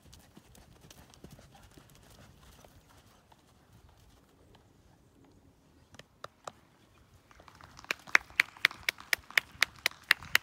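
Faint hoof sounds as a horse comes to a halt on arena sand. About eight seconds in, a person close to the microphone starts clapping steadily, about four claps a second.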